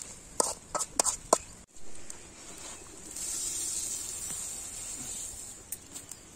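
A metal spatula clinks sharply against the side of a large steel cooking pot four times in quick succession as rice biryani is stirred. A steady hiss follows for a couple of seconds.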